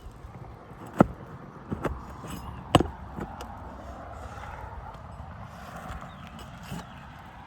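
A few sharp knocks and scuffs on an asphalt shingle roof, the loudest about a second in and another near three seconds, with weaker ticks and a faint steady hiss between.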